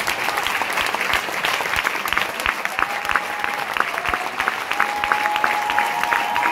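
Concert audience applauding, a dense patter of many hands clapping. About halfway through, a steady held tone comes in over the applause.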